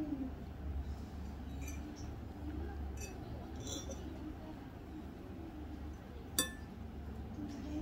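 Metal forks clinking against a stainless steel bowl as noodles are picked out: a few light clinks, then one sharper, ringing clink about six seconds in, over a low steady hum.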